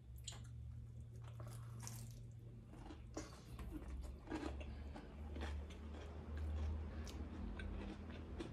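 A person chewing a big mouthful of burger, with many small irregular wet clicks and crunches over a steady low hum.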